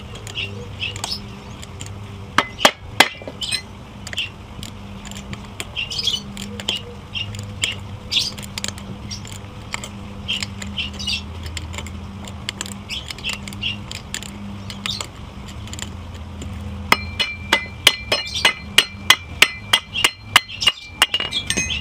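Metal tools clinking and knocking on the parts of a GX390-clone engine during teardown, ending in a quick run of ringing hammer taps, about four a second, as a gear is driven out of the engine.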